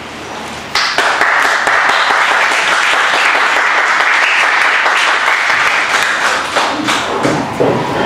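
Audience applauding. The clapping starts abruptly about a second in and dies away near the end.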